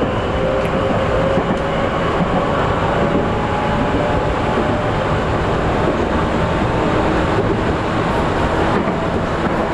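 Tokyu 8500 series electric train running, heard from aboard the car: a loud, steady rumble of motor and wheel-on-rail noise with a faint whine underneath from the traction motors.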